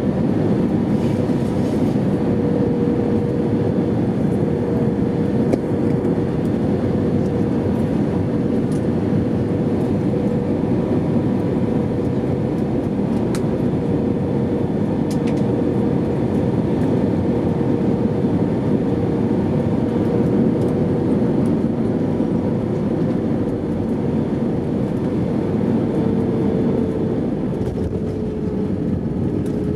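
Steady cabin noise inside an airliner: the rush and drone of the jet engines and airflow, with a steady hum that dips slightly in pitch near the end.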